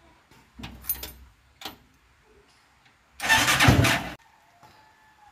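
Keys jingling and clicking at the ignition switch, then the mini jeep's 150 cc motorcycle engine is cranked in one loud burst of about a second that cuts off sharply.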